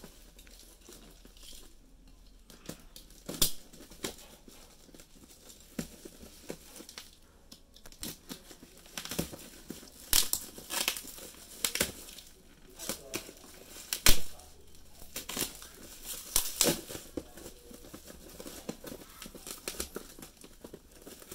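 Plastic parcel wrapping being slit with a utility knife and torn open: irregular crinkling, tearing and crackling, busiest in the second half, with one sharp loud snap near the middle.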